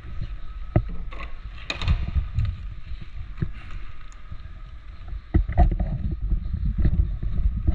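Low rumbling movement noise from a body-worn camera: rustling gear and footsteps. Scattered sharp clicks and knocks come through it, and it grows louder and busier about five seconds in.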